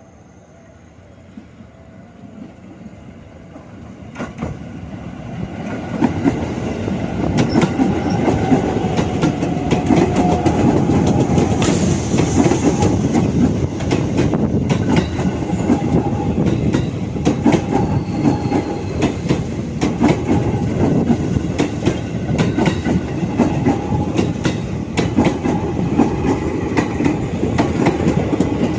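JR 205 series electric commuter train approaching and passing close by. The sound grows louder over the first six seconds, then becomes a steady loud rumble of wheels on rail with rapid clickety-clack over the rail joints.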